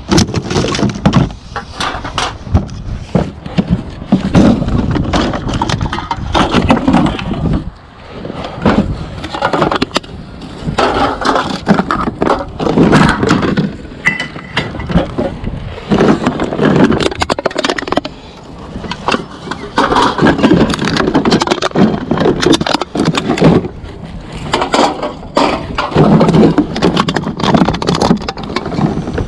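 Empty aluminium pop cans and other recyclables clattering and crinkling as they are rummaged through and gathered up, a steady run of sharp clicks and knocks.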